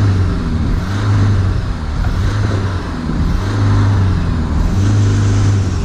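Mercedes Sprinter 310 diesel engine revved and let back down several times, its pitch rising and falling. It is being run up to check the exhaust for smoke after an hour of hydrogen carbon cleaning.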